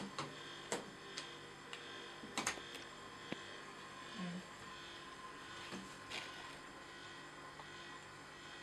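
Steady low hum with a few faint clicks and taps as magnetic letter cards are pulled off and set back on a refrigerator door.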